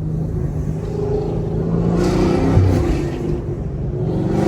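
Chevrolet Camaro SS 1LE's naturally aspirated 6.2-litre V8 running under light throttle while cruising, its pitch rising briefly about halfway through and then easing off.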